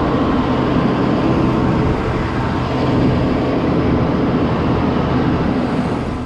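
Motor vehicle engine running close by: a steady low hum over loud road noise, which drops off suddenly at the end.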